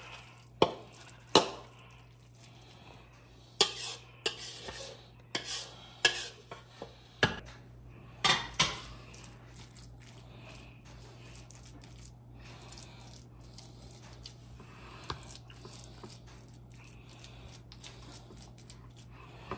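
Metal spoon scraping and clinking against a mixing bowl and a glass baking dish as meatloaf mixture is scooped in: a run of sharp clinks over the first eight seconds or so. Then quieter sounds of the raw meat mixture being spread and pressed into the glass dish with a spatula and fingers.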